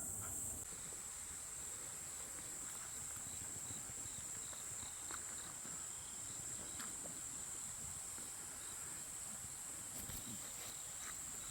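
Insects trilling steadily at a high pitch, with faint intermittent chirps and a few soft clicks.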